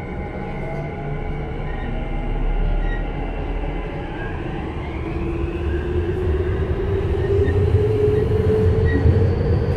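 Tokyu 5050 series train with Hitachi IGBT-VVVF inverter control, heard from inside the car as it pulls away: the inverter and traction motors whine in several tones that start rising in pitch about four seconds in, over a low rumble that grows louder as the train gathers speed.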